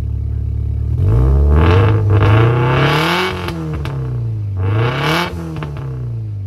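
Turbocharged Subaru engine with a catless downpipe, revved twice from idle. Each rev climbs and then falls back, and a few sharp crackles come from the exhaust as the revs drop.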